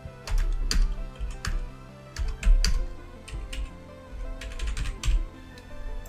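Computer keyboard typing: irregular keystrokes in short runs, over steady background music.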